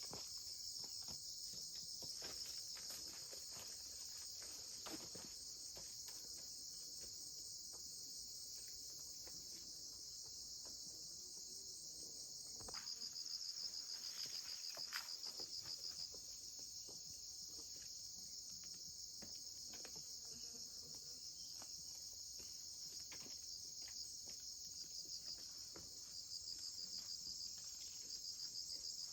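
A steady, high-pitched insect chorus with a fast pulsing trill, over scattered faint clicks and rustles.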